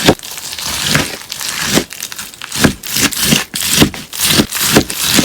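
Slime packed with melamine-sponge cubes being worked by hand, giving a repeated crisp, crunchy crackling, a stroke every half second or so.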